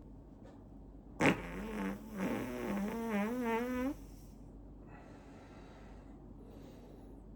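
One long fart, starting suddenly about a second in and lasting over two seconds, its pitch wavering and wobbling towards the end: air being let out after the belly was deliberately inflated. Two faint hissing sounds follow.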